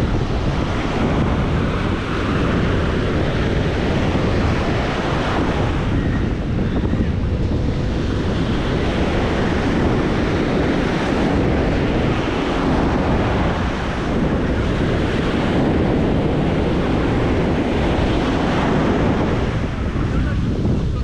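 Ocean surf washing onto a sandy beach, a steady wash of waves, with wind buffeting the microphone.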